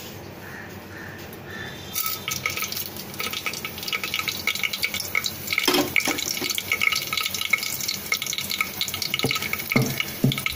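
Whole spices (cumin seeds, black pepper, green cardamom) sizzling and crackling in hot vegetable oil in an aluminium pressure cooker. The sizzle starts about two seconds in, as they hit the oil, and keeps up as a dense crackle of fine spits.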